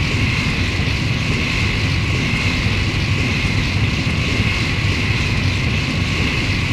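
Exterior engine noise of the G-9 Rigger freighter Twilight, a science-fiction starship sound effect: a steady looping drone with a low rumble under a bright, even hiss.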